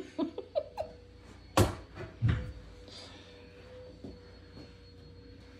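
Laminated particleboard desk panel being handled and then set or dropped down: a few light knocks, then two heavy wooden thuds a little over a second apart, the second deeper.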